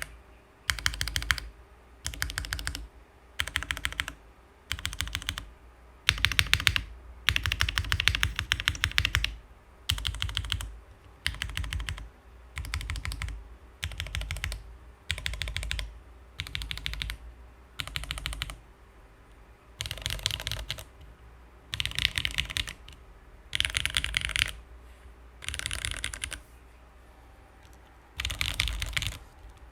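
Mechanical keyboard typing: Cherry MX Black linear switches in an aluminium TGR Jane ME on an o-ring-mounted plate, keys struck in short runs of rapid keystrokes with brief pauses between. The board has a deep resonance that the owner finds a bit too boomy.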